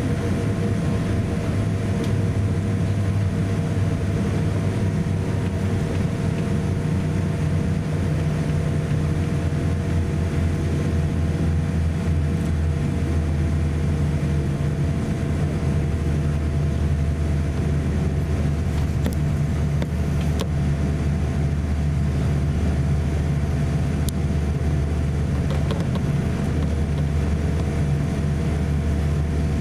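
Steady cabin noise inside a Boeing 787-8 taxiing on the ground: a low rumble from its Rolls-Royce Trent 1000 engines at taxi power, with a few steady hums above it.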